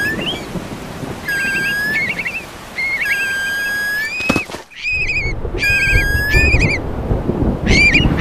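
Thunderstorm: rain and low thunder rumble, with a sharp thunder crack about four seconds in and heavier rumbling after it. Over the storm, repeated high whistled calls sound, each under a second long.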